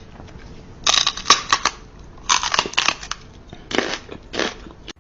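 Crunching and crackling in three short bouts, each under a second long.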